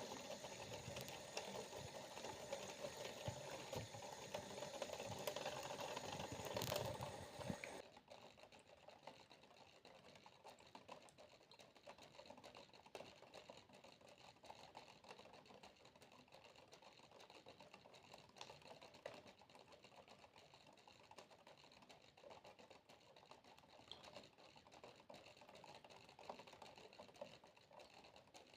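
Water running for the first several seconds, cutting off suddenly, then faint, irregular water droplets dripping as small scattered ticks.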